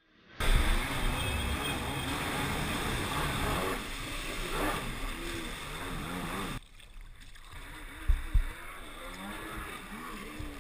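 1993 Kawasaki 750SX stand-up jet ski's two-stroke twin engine running at speed, its pitch rising and falling, over water spray and wind buffeting the helmet camera. About two-thirds through the sound drops off abruptly and comes back quieter, with two heavy thumps a second or so later.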